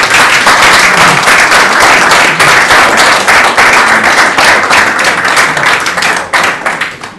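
Audience applauding: many hands clapping densely, dying away in the last second.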